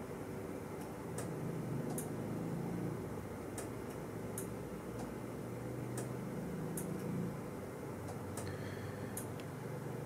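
Sharp, light ticks at uneven spacing, roughly one or two a second, over a steady low hum. A brief faint high whine comes about eight and a half seconds in.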